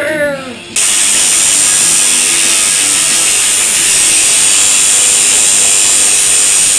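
Electric tattoo machine buzzing steadily as the needle works on skin, with a bright, hissy edge. It cuts in abruptly about a second in, after a brief voice.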